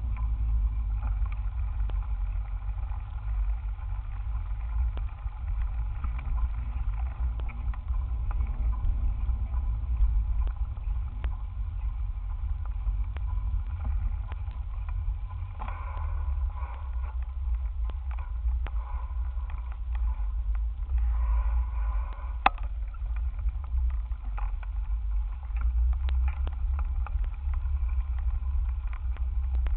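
Bicycle riding noise picked up by a cheap camera clamped to the handlebars: a steady low rumble of wind and road vibration as the bike rolls over a sand-covered street, with small rattles from the mount and one sharp knock a little past the middle.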